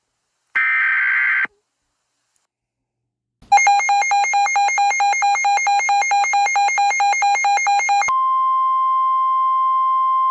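Emergency Alert System tones from NOAA Weather Radio. First, about half a second in, comes a one-second burst of digital SAME header data. After about two seconds of silence there is a rapidly pulsing beep for about four and a half seconds, and then the steady warning alarm tone, held to the end.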